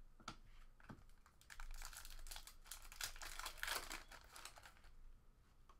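Foil wrapper of a Fleer Showcase hockey card pack crinkling as it is torn open, a dense crackle from about a second and a half in until about four seconds. A few light clicks of cards being handled come before it.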